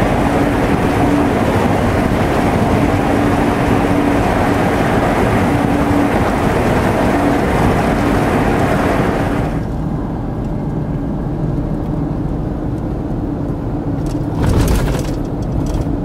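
Road and engine noise of a moving vehicle, a steady rushing with a low hum. About ten seconds in, the hiss drops away sharply and the noise becomes quieter and duller, and a short thump comes near the end.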